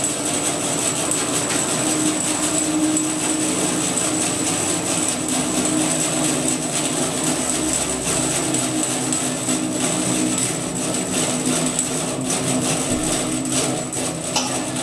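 Grizzly G0513X2 17-inch bandsaw running steadily as its blade finishes a cut through a log of spalted maple: a constant hum with a thin high whine.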